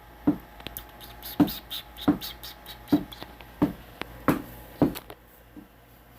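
A dog chewing, with a short sharp crunch about every two-thirds of a second; it stops about five seconds in.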